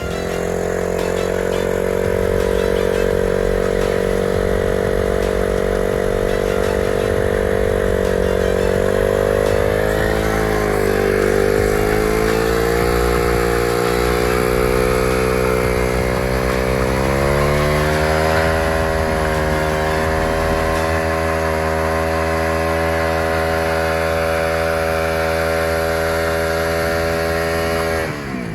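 KTM RC 200's single-cylinder engine held at high revs during a rear-tyre burnout. The pitch dips about ten seconds in, climbs back around seventeen to nineteen seconds, then cuts off near the end.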